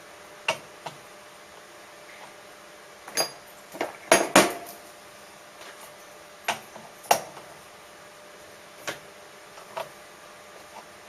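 Metal tools or parts being handled and set down on a workbench: about ten scattered clinks and knocks, some with a short metallic ring, loudest in a quick cluster about four seconds in.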